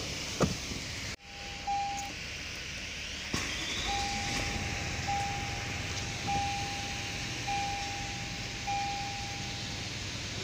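Toyota Land Cruiser dashboard warning chime: one single-pitched chime, then after a short pause a run of chimes about every 1.2 seconds, five in all. A steady low hum sits underneath, and a sharp click comes near the start.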